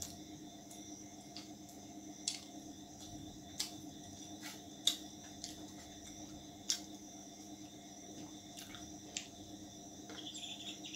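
Eating by hand from a steel plate and bowl: about half a dozen sharp, isolated clicks and taps of fingers and roti against the steel, a second or so apart, over a steady background drone.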